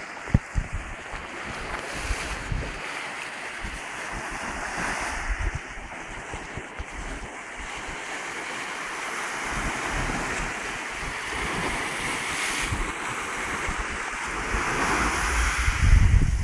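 Small waves washing up a sandy beach, the surf swelling and fading several times. Wind buffets the microphone in low rumbling gusts, most strongly near the end.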